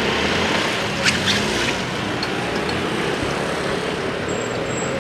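Steady road-traffic noise with a few light clicks about a second in.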